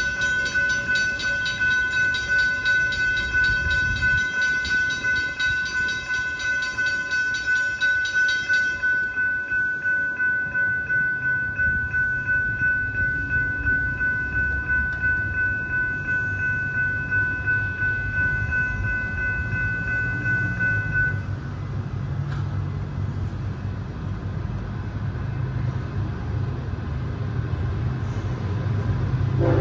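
Railroad grade-crossing warning bell ringing in steady pulses, about two a second, stopping about two-thirds of the way through. A low rumble of the approaching train grows in the last seconds.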